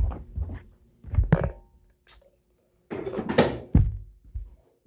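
A few knocks and handling noises from putting a sandwich together, the loudest a thump about three seconds in.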